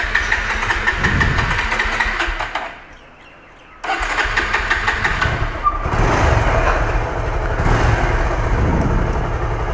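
Motorcycle engine running, then shut off about three seconds in. After about a second of quiet it is started again and runs steadily.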